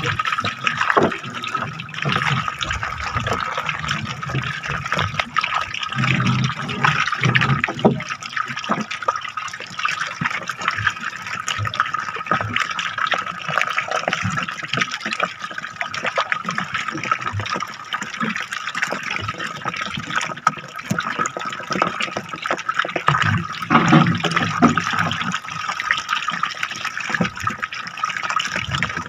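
Water splashing and running, with a steady high whine throughout and scattered small knocks and clicks.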